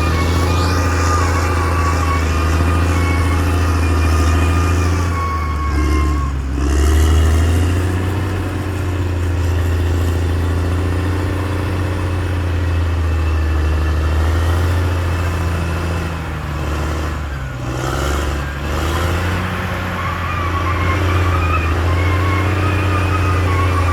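Caterpillar D6R XL bulldozer's diesel engine running steadily under load, with a higher whine alongside. The engine note dips and shifts twice, about six seconds in and again near eighteen seconds, as the load changes.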